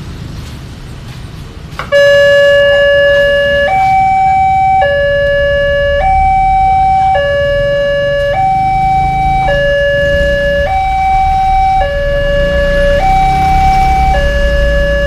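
Railway level-crossing warning siren, the newly fitted Alkmaar unit, switching on abruptly about two seconds in and sounding a steady two-tone alternation, low and high, each tone held a little over a second. A low rumble of road traffic runs underneath.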